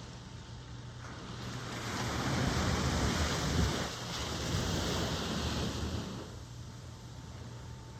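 Ocean wave breaking and washing in. It swells about a second and a half in, peaks midway, and dies back by about six seconds. A steady low rumble of surf lies beneath it.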